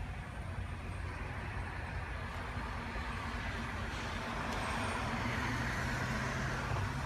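A motor vehicle running, its engine note stepping up a little about five seconds in, over a steady rushing noise.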